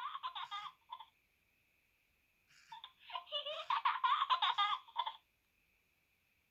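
Recorded laughter of a small child played as a ringtone through the Nokia N70's small loudspeaker, in two giggling bursts with a pause between them, over a faint steady high tone.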